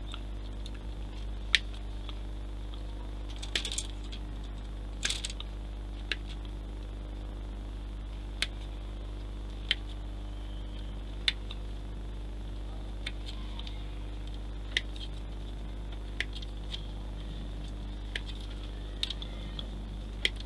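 Scattered sharp clicks of small plastic model-kit parts and hobby tools being picked up and set down on a workbench, about fifteen at irregular intervals, over a steady low electrical hum.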